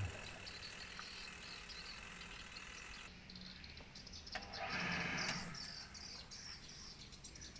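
Faint insects chirring, with one brief louder noise about five seconds in.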